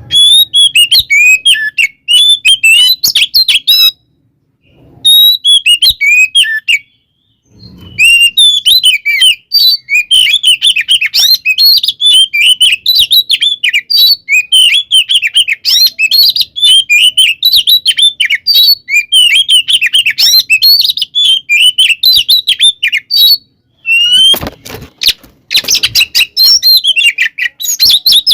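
Oriental magpie-robin (kacer) singing in full, aggressive fighting song: fast runs of high, sweeping chirps and whistles, broken by a few short pauses. A burst of crackling joins the song about 24 seconds in.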